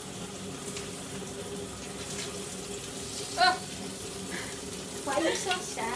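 Bacon frying in a pan, a steady sizzling hiss, with a brief voice about three and a half seconds in and more voices near the end.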